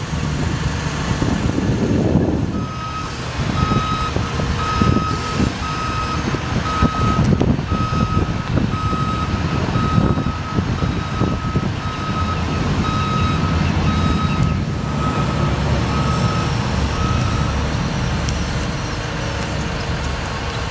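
A truck's electronic warning alarm beeping steadily, one pitch repeating a bit faster than once a second; it starts a couple of seconds in and stops a few seconds before the end. It comes from a Terex HR40 bucket truck as its boom rises and swings, with the truck's engine running steadily underneath.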